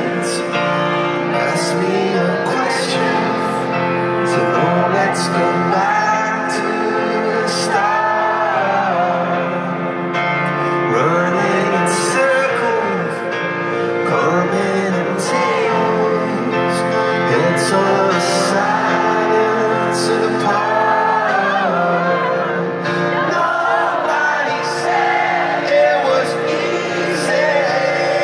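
Live band music heard from within a stadium crowd: a male lead singer sings over piano and guitar chords, with a regular beat.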